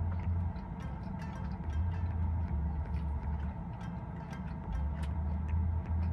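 Background music with a low bass line, under irregular clicks and smacks of someone chewing food.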